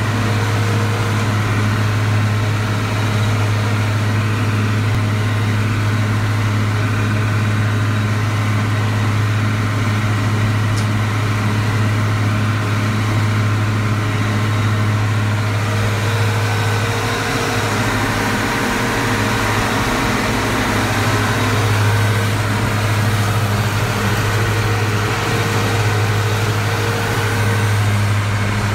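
Tractor engine running steadily while pulling a hay mower through ryegrass, a constant low drone that barely changes.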